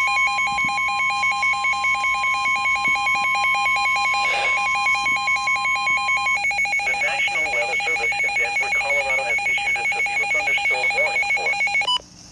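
Weather radio emergency alert: a rapid, warbling two-tone alarm beeping without a break, with the steady 1050 Hz NOAA Weather Radio warning tone under it until about six seconds in. A broadcast voice comes in faintly underneath, and the warbling alarm cuts off near the end.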